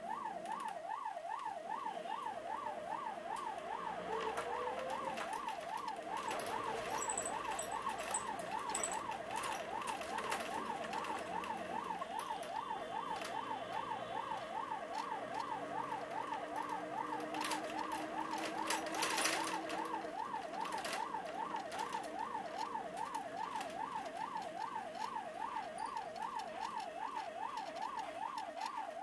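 Ambulance siren sounding a rapid, even up-and-down yelp, heard from inside the patient compartment. A brief clatter stands out about two-thirds of the way through.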